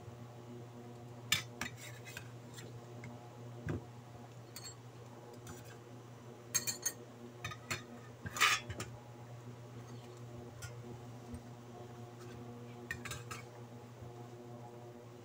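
Scattered clinks and knocks of kitchen utensils against a metal pot and dishes, the loudest about eight seconds in. Under them runs a steady low hum from a running induction cooktop heating a stainless steel pot.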